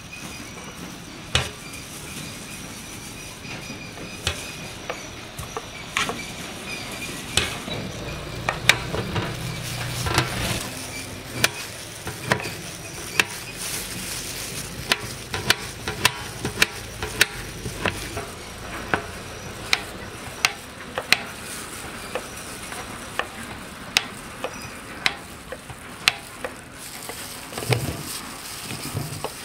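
Knife cutting a peeled mango into cubes on a plastic cutting board: sharp taps of the blade on the board, scattered at first, then a run of about two a second. Near the end the diced pieces are scraped off the board into a steel bowl.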